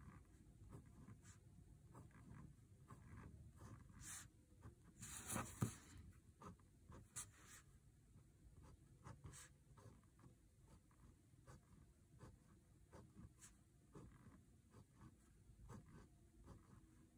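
Faint scratching of a fine-tipped Micron PN pen drawing short strokes on a paper tile, with a louder paper rustle about five seconds in as the tile is turned on the paper.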